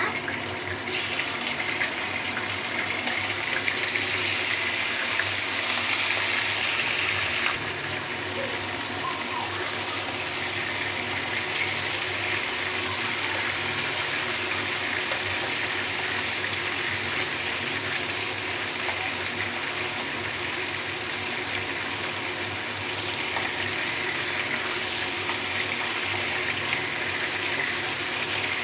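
Chicken pieces sizzling as they fry in hot oil in a kadai, a steady hiss that is louder for the first several seconds and then settles.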